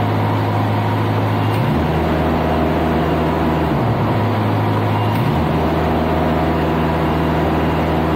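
Niftylift HR21D boom lift's diesel engine running and switching between idle and high revs twice. It steps up about two seconds in, drops back to idle near the middle, steps up again about five seconds in, and drops back at the end. With its throttle solenoid's pull and hold coil wires put back the right way round, the engine holds high revs without cutting out.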